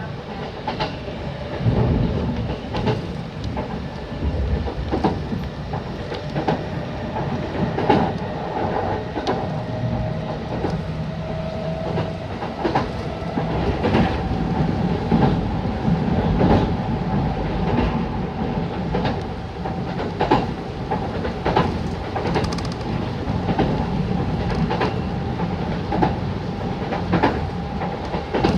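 Kintetsu electric train running, heard inside the carriage: wheels clacking over rail joints about once a second over a steady rumble, with a motor whine that rises in pitch as the train picks up speed, then holds steady.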